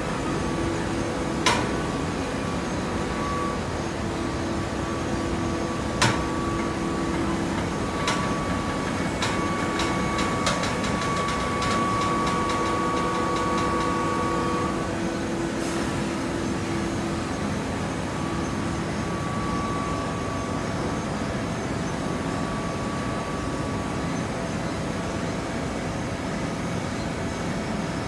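Horizontal hydraulic baler running, its hydraulic power pack giving a steady hum. Two sharp clanks, about a second and a half in and about six seconds in, are followed by a quick run of metallic ticks around ten seconds in.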